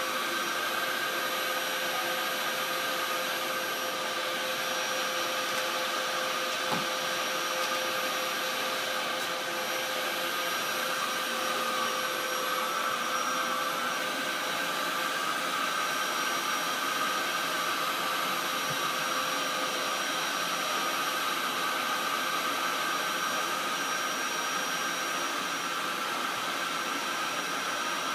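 Dyson upright vacuum cleaner running steadily: a constant motor hum with a few steady high tones over a rushing hiss.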